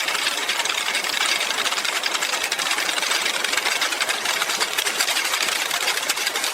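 Food-processing machinery running with a fast, steady mechanical rattle over a hiss, unchanging throughout.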